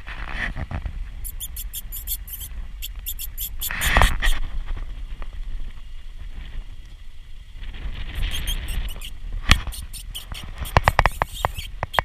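Bursts of rapid, very high-pitched squeaks, several a second, in two main runs with a short loud rustle between them, over a steady low rumble.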